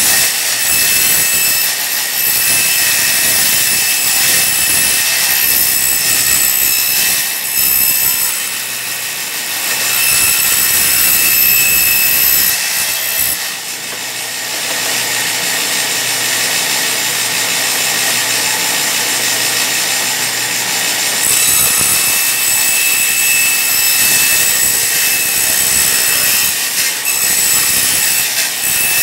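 Workbench-mounted table saw running and ripping thin wood strips: a steady motor whine with cutting noise that dips briefly about nine and fourteen seconds in.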